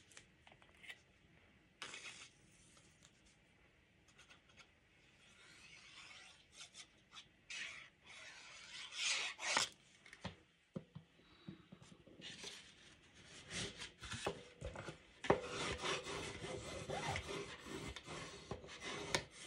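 Black cardstock being handled and rubbed: scattered soft rustles and taps at first, then more continuous paper-on-paper rubbing over the last few seconds.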